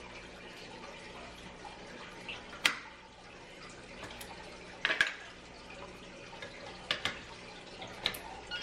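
Sharp clicks and taps from an electronic keypad deadbolt being handled while its batteries are changed: the cover and buttons snapping under the fingers, a handful of separate clicks. Under them runs a steady trickle of water from a loud fish tank.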